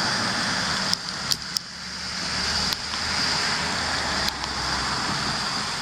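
Steady outdoor background noise with a low hum and a thin high hiss, broken by a handful of short sharp clicks between about one and four seconds in.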